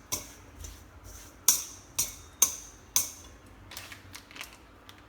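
Utensil clinking sharply against a bowl while pig ear is being tossed with roasted rice powder: about five crisp clinks in the first three seconds, then a few fainter taps near the end.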